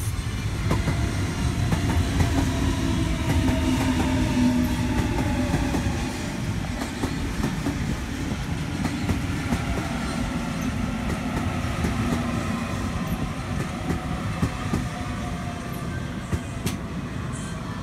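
Double-deck electric passenger train passing by on the rails, a steady rumble of wheels with repeated clicks over rail joints and a faint whine. Loudest a few seconds in, then slowly easing.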